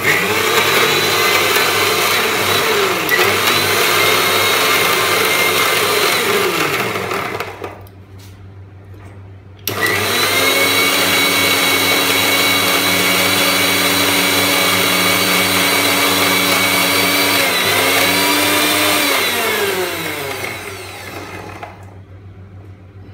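Electric mixer-grinder with a steel jar grinding herbs, chillies and curd into a wet green paste. The motor runs at full speed for about seven seconds and winds down. It starts again about ten seconds in, runs about nine more seconds and winds down again.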